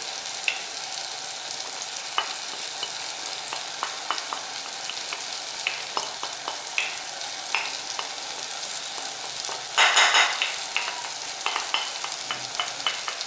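Chopped onion, garlic and tomato sizzling lightly in oil in a soup pot with red lentils just added, stirred with a utensil that clicks against the pot. A brief louder rush of noise comes about ten seconds in.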